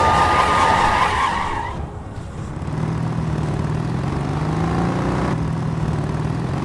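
Car tyres squealing in a skid for about the first second and a half, then a vehicle engine running and slowly rising in pitch as it speeds up.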